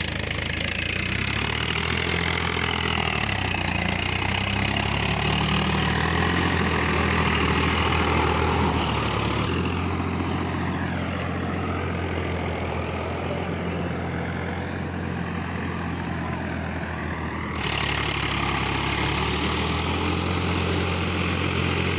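Tractor engine running steadily while the field is ploughed, with a low, even drone; its tone changes briefly around the middle.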